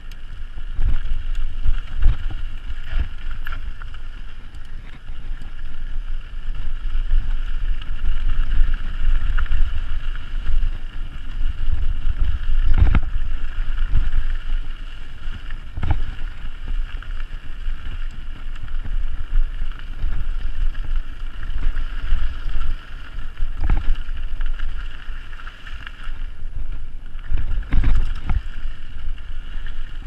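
Wind buffeting the microphone over the rumble of a mountain bike rolling down a rough dirt singletrack trail, with several sharp knocks as the bike jolts over rocks.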